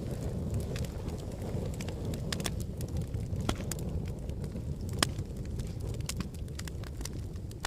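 Wood fire burning in a fireplace: a steady low rumble of flames with scattered crackles and pops, a louder pop about 5 seconds in.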